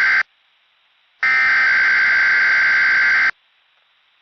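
Specific Area Message Encoding (SAME) digital header on a weather radio broadcast: harsh buzzing data bursts, each about two seconds long and separated by a second of near silence. One burst ends just after the start, a second plays in full, and a third begins at the very end. The header announces a required weekly test.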